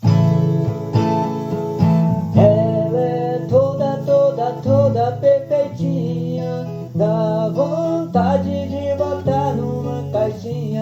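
Acoustic guitar played as a song's introduction: strummed chords with a plucked melody over them.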